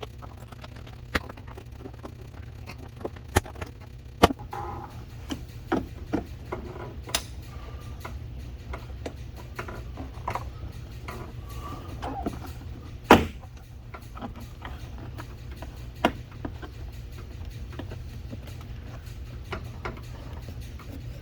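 Sharp clicks and knocks of a car's interior door trim panel being pried and pulled off, scattered a few seconds apart with one louder knock just past halfway, over a steady low hum.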